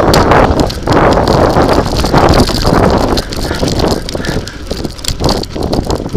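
Tyres rolling and crunching over a rough, stony gravel road, with many small knocks and rattles, and wind rushing across the microphone. It is louder for the first few seconds, then eases.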